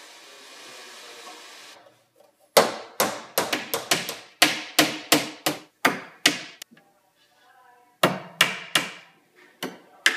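Hammer blows on a door frame: a quick run of about a dozen sharp strikes, each ringing briefly, then a pause of about a second and another run near the end. A faint steady hiss comes before the hammering and cuts off about two seconds in.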